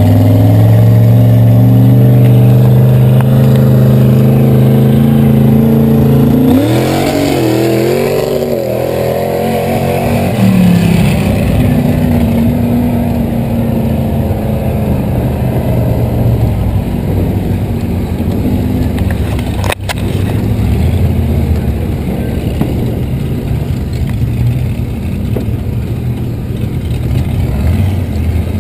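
Vehicle engine running loud and steady, then revved, its pitch rising and falling about seven to ten seconds in. It settles into a lower, noisier steady drone while moving over grass, with one sharp click about twenty seconds in.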